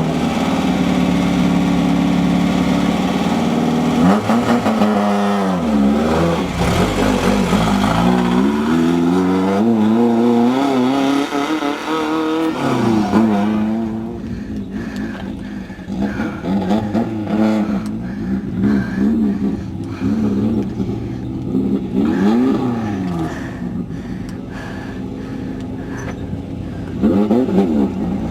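Off-road race buggy engine revving hard: its pitch climbs and drops again several times in a row as it accelerates through the gears. About halfway through it turns quieter and more uneven, with short rises and falls in revs and a louder burst near the end.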